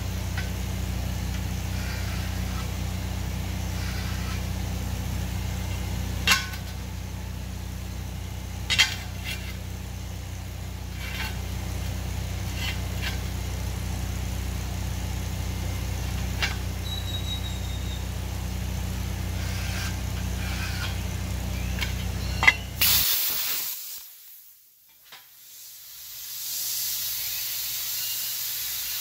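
A steady low machine hum with a few sharp taps, then, after a sudden change near the end, a steady hiss of air from a plasma cutter torch held on the steel pipe to cut the door.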